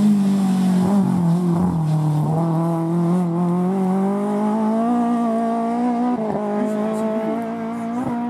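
Peugeot 206 rally car's engine at high revs as it passes and pulls away. The pitch dips between one and two seconds in, then climbs slowly and steadily as the car accelerates.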